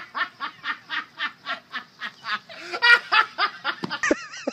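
A person laughing hard in rapid, even bursts, about six a second, with a louder burst about three seconds in. Near the end a wavering high-pitched sound takes over.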